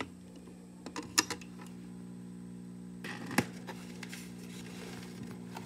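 A record player being started with a 7-inch vinyl single: several sharp clicks about a second in, then the stylus drops onto the record about three seconds in with a click and lead-in groove surface noise, over a steady low hum.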